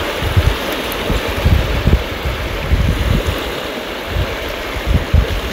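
Wind blowing across the microphone in irregular low rumbling gusts over a steady rush of wind and water.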